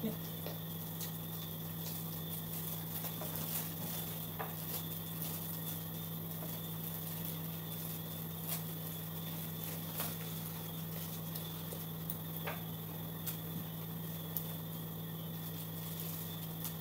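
Scattered light clicks and taps of people eating at a table, over a steady low hum.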